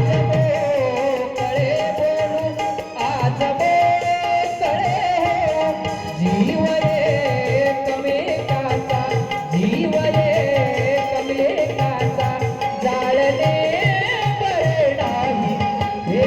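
Instrumental interlude of a Marathi song: a wavering melodic line over steady tabla strokes, with the bass drum's pitch sliding upward now and then.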